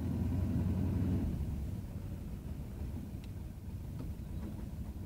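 Bus engine running and road rumble, heard from inside the cab as it drives along. The rumble is strongest in the first second or so, then eases.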